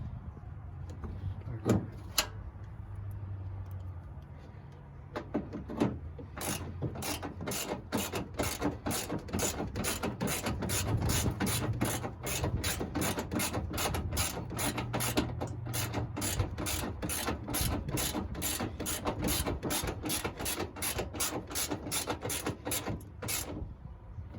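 Ratchet wrench clicking in a steady run of about three clicks a second, likely running down the bolts of a washer reservoir, after a few separate clicks and knocks. The run stops about a second before the end.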